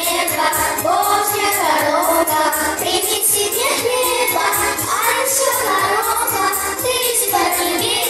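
Children's vocal ensemble singing a song together into microphones, amplified over music with a steady beat.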